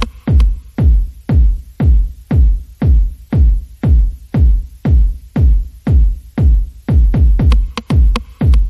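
Electronic dance music with a heavy kick drum on every beat, about two beats a second, each thud dropping in pitch.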